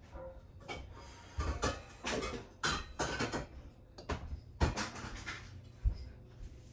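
Irregular kitchen handling noises: scattered knocks and clatter, with a few dull thumps.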